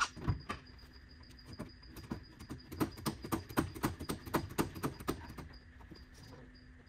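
A hand-lever hydrolastic suspension pump is worked, pumping fluid into the Mini's passenger-side hydrolastic suspension to raise the ride height. There is a knock right at the start, then, from about two seconds in, a quick run of light clicks, about four a second, for about three seconds.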